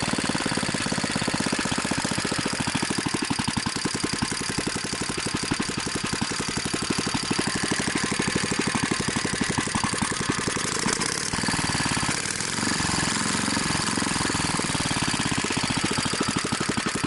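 BSA 220cc single-cylinder governed engine running steadily with an open exhaust and no muffler, firing in fast, even pulses. There is a brief dip in level a little past the middle.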